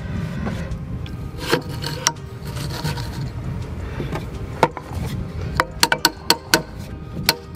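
Rubbing and scraping of a steel bearing being worked along an anchor winch shaft. From about five and a half seconds in comes a quick run of sharp metal-on-metal hammer taps, about four a second, knocking the bearing off the shaft.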